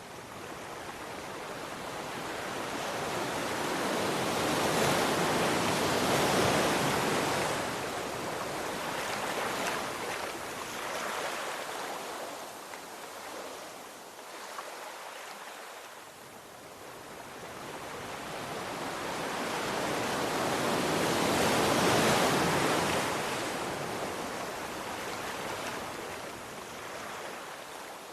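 Sea waves breaking and washing in: two big surges that rise and fall away, about fifteen seconds apart, with smaller washes between.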